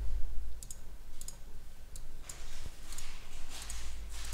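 Computer mouse clicking: a few sharp clicks in close pairs in the first second and a half, then soft hissing noise.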